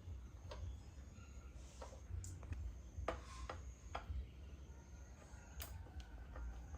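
Light clicks and taps at irregular intervals, the sharpest about three seconds in, over a steady low rumble.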